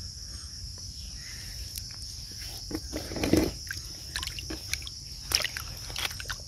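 Hands digging and scooping in wet sand and shallow muddy water, with short irregular splashes and squelches, the strongest about three seconds in. Under it runs a steady high-pitched drone of crickets.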